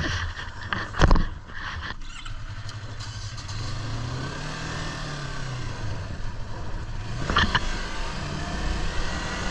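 Motorcycle dropped into first gear with a loud clunk about a second in while the kickstand is still down, which cuts the engine through the side-stand safety switch. After that a low engine tone rises and falls in pitch, with a short sharp burst of engine sound about seven seconds in.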